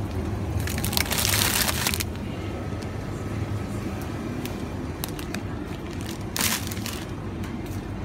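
Plastic packaging of garlic bread crinkling as it is picked up and handled, in a longer burst about a second in and a shorter one near the end, over a steady low hum of the store's chiller cases.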